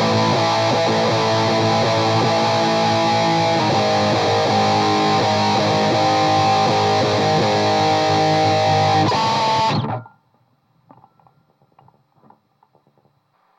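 Distorted electric guitar, a Schecter with Seymour Duncan JB and Jazz pickups, played through a Saphue Crunch Distortion pedal and an Orange Rocker 15 amp, mic'd off a Celestion Vintage 30 speaker. Held chords change every few seconds, then the playing cuts off suddenly about ten seconds in, leaving only faint ticks.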